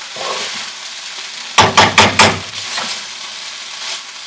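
Fried rice sizzling in a hot skillet as it is stirred and tossed with a metal spatula. About halfway through there is a quick run of several loud, sharp knocks of the spatula against the pan.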